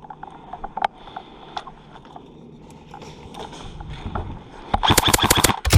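Rustling movement with scattered small clicks, then near the end a rapid burst of airsoft gunfire on full auto, about ten shots a second.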